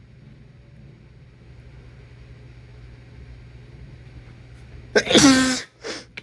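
A man with a head cold sneezes once, loudly, about five seconds in, the voiced part dropping in pitch. It is followed by a short breath.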